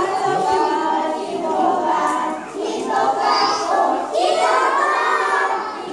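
A group of young children singing a song together in unison, in phrases with short breaks about two and a half and four seconds in.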